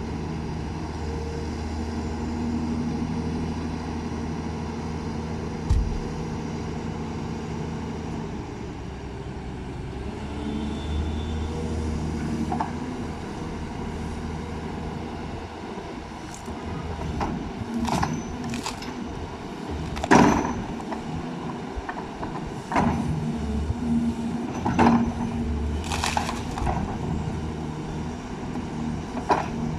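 Backhoe's diesel engine running steadily, with sharp knocks and cracks as its bucket strikes and breaks up big tree roots, one early on and a cluster in the second half.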